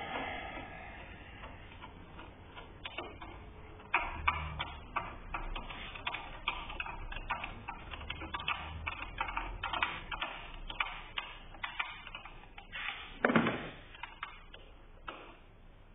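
Rapid, uneven metallic clicking of a ratchet wrench loosening a car battery's terminal clamp nut, with a louder knock about 13 seconds in.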